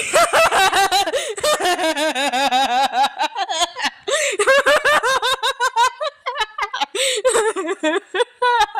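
High-pitched wheezing laugh: rapid repeated snickering pulses that break off briefly a couple of times, around three and six seconds in.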